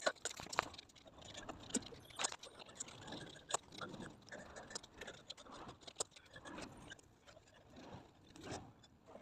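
Irregular light clicks and taps with faint scraping, a few sharp ones standing out.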